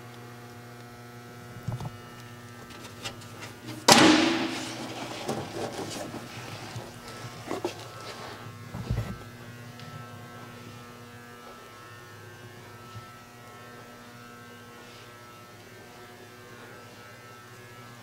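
Steady low electrical hum, with one loud thump about four seconds in and a few lighter knocks after it.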